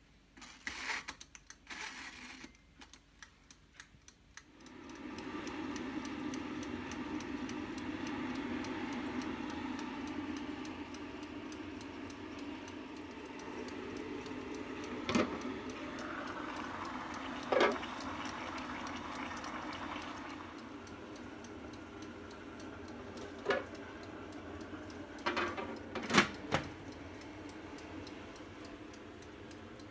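MioStar electric steamer switched on with a few clicks of its dial, then running with a steady hiss as its water heats, fine regular ticking throughout and a few sharp knocks later on.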